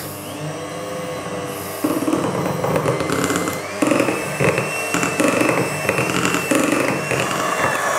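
Kenwood kMix electric hand mixer running, its twin beaters whisking chocolate cake batter in a glass bowl, with background music playing.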